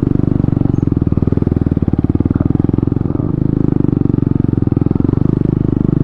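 Motorcycle engine running during a ride, a steady, fast-pulsing low throb with a brief shift in pitch about three seconds in.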